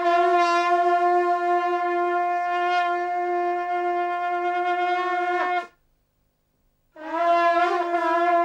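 A horn-like wind instrument sounding one long steady note for about five and a half seconds, ending in a slight downward slide. After a gap of about a second, a second long note comes in on the same pitch.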